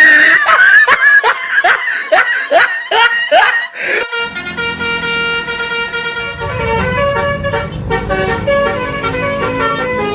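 A multi-tone telolet bus horn playing a stepping tune, with a low engine rumble joining about two-thirds of the way in. It is preceded by a rapid run of swooping, rising-and-falling sounds about three a second.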